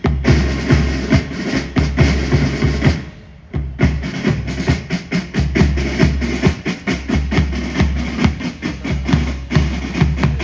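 Military band playing, with rapid drum strokes and bass drum beats to the fore; the playing drops away briefly about three seconds in, then starts again.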